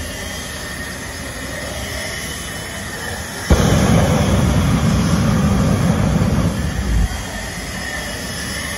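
Jet truck's jet engine running at a low throttle, then about three and a half seconds in it suddenly blasts up loud with the afterburner lit, blowing flame into a burning car for about three and a half seconds before dropping back down.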